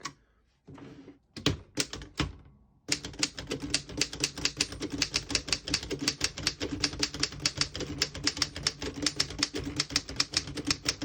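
1915 Royal 10 desktop typewriter being typed on. A few separate key strikes come first, then from about three seconds in a fast, steady run of keystrokes with a high-pitched metal sound.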